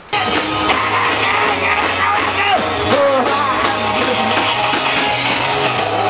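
Rock music with singing, electric guitar and drums, cutting in abruptly.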